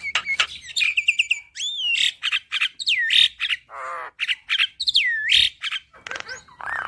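Javan myna singing a varied song: rapid clicks and chatter mixed with whistled notes that dip and then rise, and a few harsh rasping calls.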